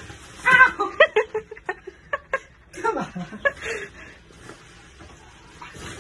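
A person laughing in short bursts, in two spells: one about half a second in and another around three seconds in.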